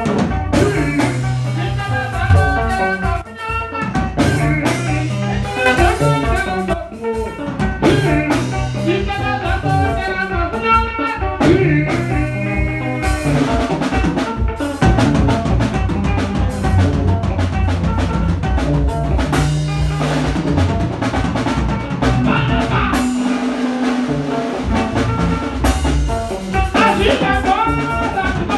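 A band rehearsing live: drum kit and electric bass playing together with a steady beat, and a higher melody line over them for about the first half.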